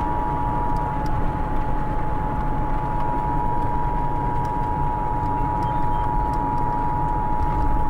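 Emergency Alert System attention signal: a steady two-note alarm tone from a broadcast, announcing a tornado warning. Road and engine rumble of a moving car runs underneath.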